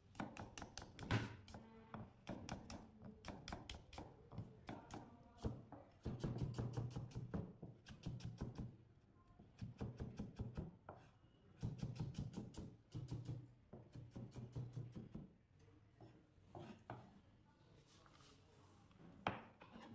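Kitchen knife finely chopping an onion on a plastic cutting board: quick runs of rapid knife strokes knocking on the board, broken by short pauses. The strokes thin out near the end, and there is one louder knock just before the end.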